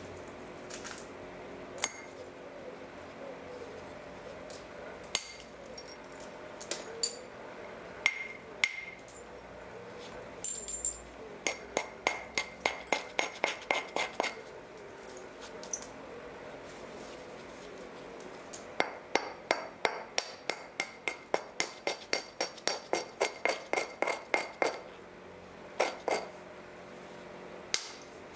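Flint knapping on a Helgoland flint dagger blank: scattered sharp, glassy clicks of a tool striking the flint, then two runs of quick light clicks at about four a second, a short one and a longer one later.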